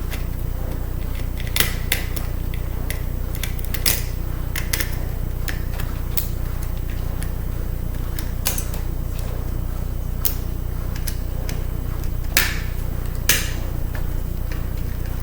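Scattered small clicks and taps of a screwdriver and tiny screws against the metal casing of a laptop CD drive being unscrewed, over a steady low hum.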